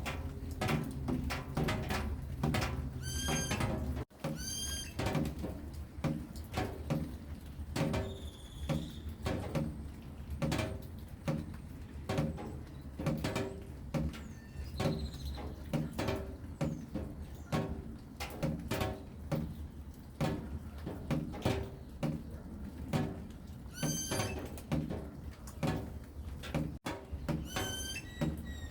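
Rain dripping in a steady rhythm of sharp taps, a few each second. Short, high, wavering animal calls break in twice near the start and twice near the end.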